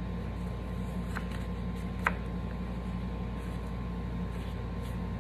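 Cardstock greeting card being opened by hand: a light papery click about a second in and a sharper tap about two seconds in, over a steady low electrical hum.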